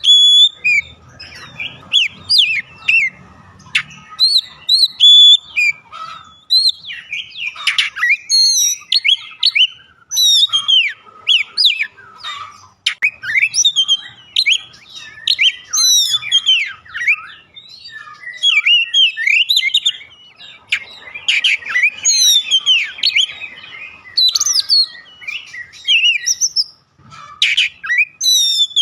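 Oriental magpie-robin (kacer) singing continuously: a rapid, varied run of clear whistles, slurred rising and falling notes and quick chattering phrases with only brief pauses, the full song of a bird in top form.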